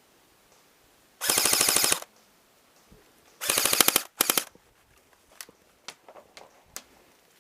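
Airsoft gun firing on full auto in rapid bursts: one burst of under a second about a second in, then another at about three and a half seconds followed at once by a short third. A few faint clicks follow.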